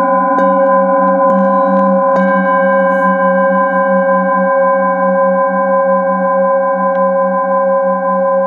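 Metal singing bowl struck with a mallet three times in the first couple of seconds, then left to ring. Several steady tones sound together, and the lowest one wavers in a quick, regular pulse.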